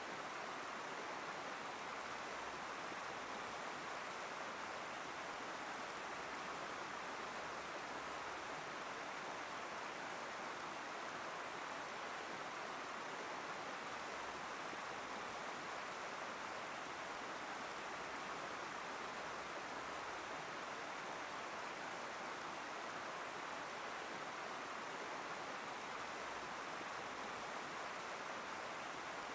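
Chehalis River floodwater rushing over a road and fields, a steady, even rush of moving water.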